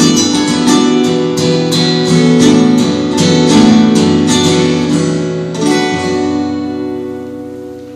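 Two acoustic guitars playing the closing bars of a song, strummed and picked chords, then a last chord about five and a half seconds in that rings out and fades away.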